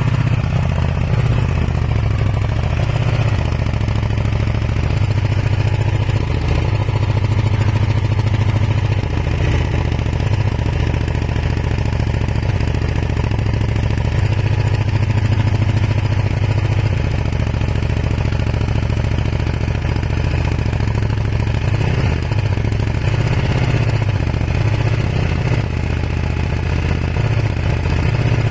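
Kawasaki ER-5 motorcycle's parallel-twin engine running steadily at low revs with a somewhat uneven beat; the engine is misfiring and smoking white, which the owner suspects is a blown head gasket.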